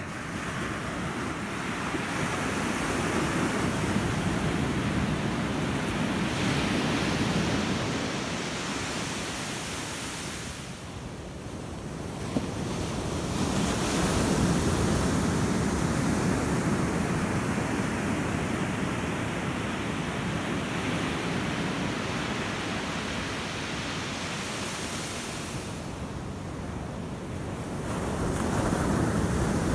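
Ocean waves breaking and washing ashore: a steady hiss of surf that swells and eases in long surges every several seconds, with some wind on the microphone.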